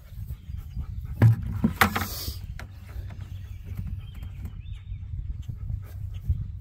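A dog panting, with a few sharp knocks and a brief hiss between about one and two and a half seconds in.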